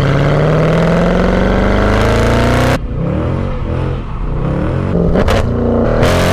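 Mercedes C63 AMG's 6.2-litre V8 heard through its exhaust with the secondary cats and resonators deleted: accelerating with the pitch climbing for nearly three seconds, then lifting off with the note dropping and burbling. A couple of sharp cracks come about five seconds in as the engine builds again.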